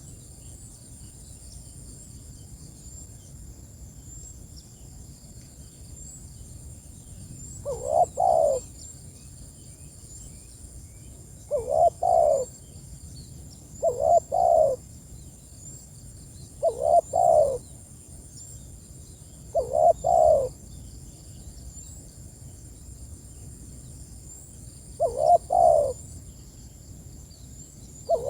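Spotted dove (tekukur) cooing: short phrases of two or three coos, repeated about seven times every few seconds from about 8 seconds in. It is a calling song used to lure and challenge rival doves. A faint, steady, high chirring runs in the background.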